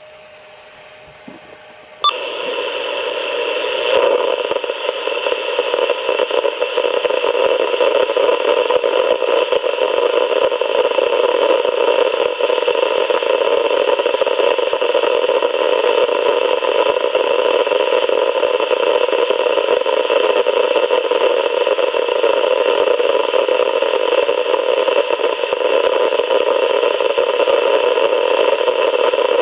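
Loud, steady radio static hiss from a weather radio receiver, heard during the station's dead air when no programme audio is coming through. It cuts in suddenly about two seconds in, swells briefly, then holds steady.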